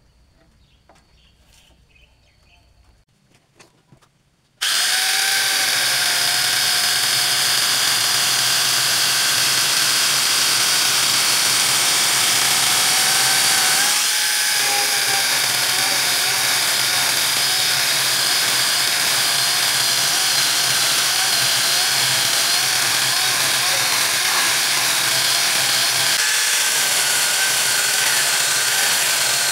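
Corded angle grinder fitted with a chainsaw bar attachment, running and cutting into a wooden plank to thin it down. It starts suddenly about four and a half seconds in, after a few faint clicks. The motor's whine wavers in pitch as the chain bites, with two brief dips.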